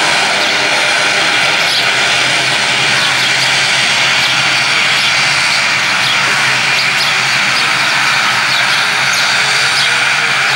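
ATR 72 turboprop airliner taxiing, its two Pratt & Whitney PW127 turboprop engines running steadily at taxi power.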